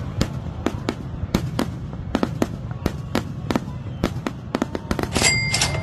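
Fireworks going off: a fast, irregular string of sharp cracks and bangs over a low rumble. A brief high whistle sounds near the end.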